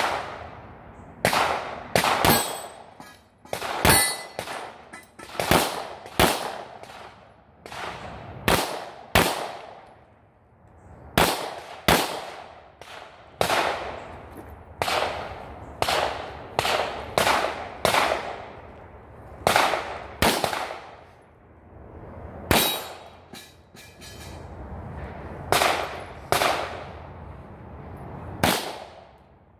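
Beretta 92 Inox 9mm pistol firing dozens of shots at a fast pace, in quick pairs and short strings with brief pauses between. Each shot rings briefly after the crack.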